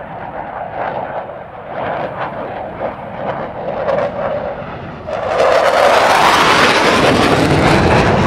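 Fighter jet engine on full afterburner making a low overhead pass. A crackling rumble grows as it approaches, then about five seconds in the sound jumps sharply to a loud, full-range jet roar as the aircraft passes overhead.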